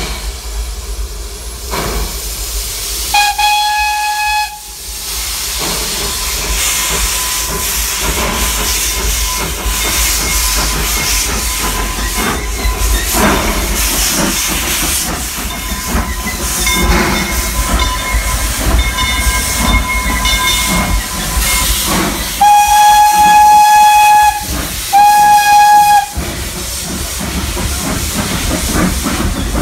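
1925 Baldwin 0-4-0 steam locomotive blowing its steam whistle: one blast about three seconds in, then two blasts close together near the end. Between the blasts there is a steady hiss of steam as the train rolls past.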